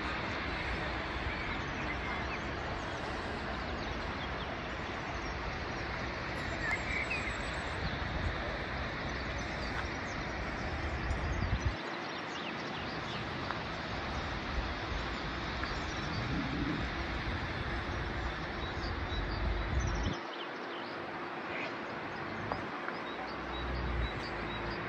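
Outdoor ambience: a steady rushing hiss with wind rumbling on the microphone, the rumble dropping away twice, and a few faint bird chirps.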